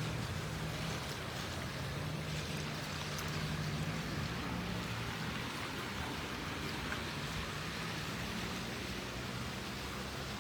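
Steady rushing noise of floodwater running in a street after heavy rain, with a low steady hum underneath.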